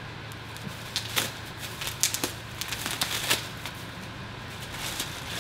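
Plastic packaging wrap crinkling and crackling in a few quick bursts as the boxed bike is handled, over a steady low hum.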